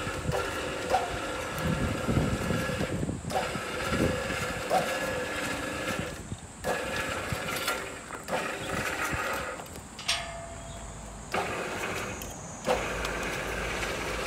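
Electric hoist motor and reduction gearing of a block clamp crane running in spurts with a whine of several tones, stopping and starting several times as the clamped concrete blocks are moved and lowered. A few short knocks come in between.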